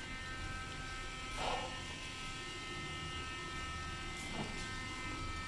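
A steady electrical buzz: a thin high whine over a low hum. Two short rustles break in, about a second and a half in and again near the end, the second as a bundle of clothes is gathered up.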